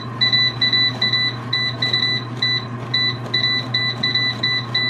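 Ultrean air fryer's control panel beeping rapidly, about four short high beeps a second, as the cooking timer is stepped up minute by minute. A steady low hum runs underneath.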